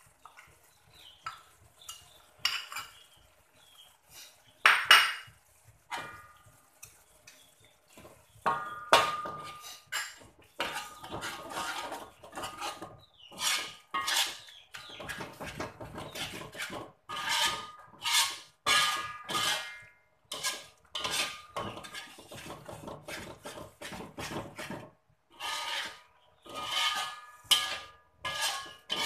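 A metal spatula scraping and knocking against an aluminium wok as thick curry paste is stirred, with a ringing metallic tone. There are a few scattered scrapes and knocks at first, then from about eight seconds in come quick, repeated stirring strokes.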